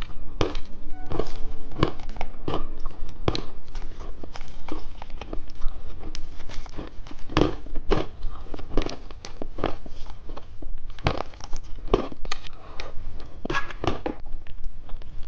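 Candy wrappers crinkling and tearing up close, with crunching, in a dense irregular run of sharp crackles and clicks.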